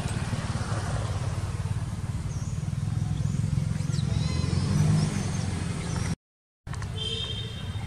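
Long-tailed macaques giving brief high, wavering squeals over a steady low rumble; the sound drops out for a moment about six seconds in.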